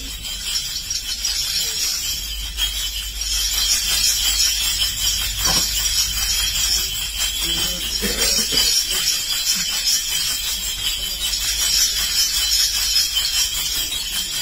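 Small metal ritual bells shaken in a continuous high metallic jingle throughout, with a low electrical hum beneath.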